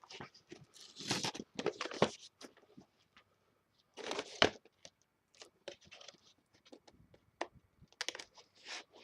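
Toy blaster packaging being handled and opened: several bursts of scraping, tearing and crinkling, with scattered short clicks in between.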